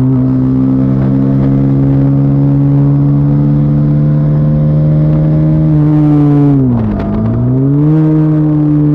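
Bajaj Pulsar NS400Z's single-cylinder engine running through its stock exhaust under way, revs holding and slowly rising. About six and a half seconds in the revs drop sharply, then climb back and hold steady.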